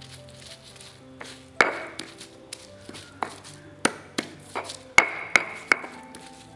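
About seven sharp knocks at irregular intervals, a few of them ringing briefly, typical of kitchen preparation work, over soft background music.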